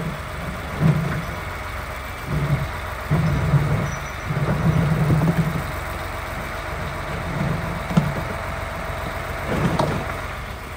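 Grab lorry's diesel engine running and revving up and down as the hydraulic grab is worked to load broken-up tarmac, with a couple of sharp knocks near the end.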